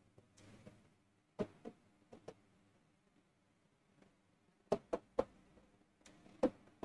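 Faint taps of a stylus on an interactive whiteboard's screen during writing: a few scattered knocks, with a quick run of three about five seconds in.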